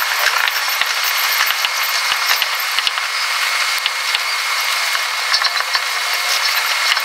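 Running sound in the driver's cab of a Tobu 50000-series electric train, sped up sixfold with the timelapse: a high, even hiss with rapid, irregular clicking and a faint steady tone.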